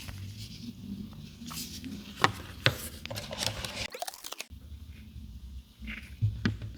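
Packaging being handled during a smartphone unboxing: rustling and crinkling with sharp clicks, busiest about two to four seconds in, over a low steady hum.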